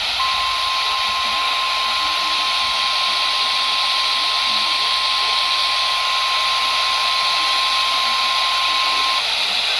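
NOAA Weather Radio 1050 Hz warning alarm tone: one steady, unwavering tone, held about nine seconds before cutting off. It sounds over the steady hiss of radio static.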